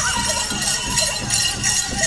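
Powwow drum beating at about two beats a second for the men's grass dance, with bells jingling over it.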